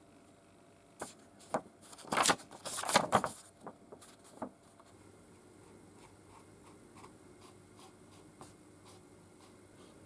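Handling noise: a few knocks and a paper rustle as an aluminium block and a paper template are set down on a wooden workbench, loudest two to three seconds in. Then faint, evenly repeated scratchy strokes of a permanent marker tracing the template's outline onto the aluminium.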